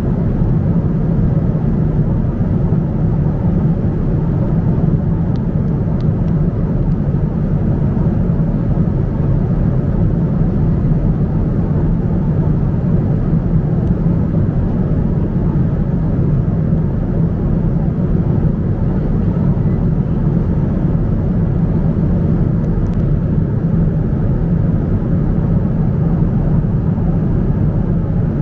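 Cabin noise of a Boeing 777-200 airliner in cruise: a steady, even low rumble that does not change.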